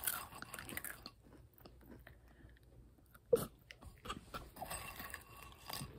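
Goldfish crackers being crunched and chewed close to the microphone, a series of irregular crisp crackles. A brief voice sound breaks in about three seconds in.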